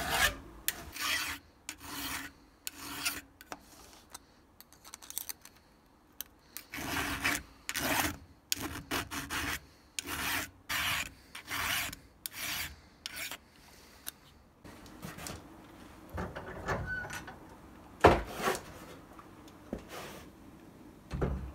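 Hand file rasping across the depth gauges (rakers) of a chainsaw chain through a depth-gauge tool, in runs of short strokes about one a second, taking the rakers down. Near the end, a couple of sharp knocks as the saw is handled in the vise.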